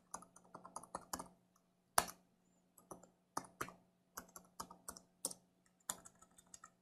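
Computer keyboard typing: a run of irregular keystrokes with short pauses, one stroke about two seconds in sharper than the rest. A faint steady hum sits underneath.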